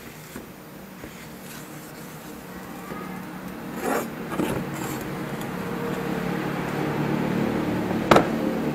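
A long metal knife blade is handled, scraping and clinking, then set down on a tile floor with one sharp clack about eight seconds in. Under it a steady mechanical hum grows gradually louder.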